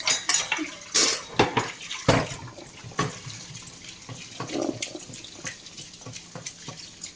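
Water splashing at a sink, with irregular knocks and clatters of things being handled in it, the loudest about one and two seconds in.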